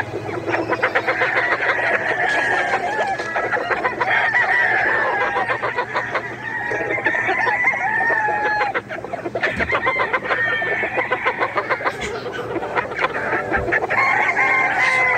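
Gamefowl chickens clucking and roosters crowing, many calls overlapping.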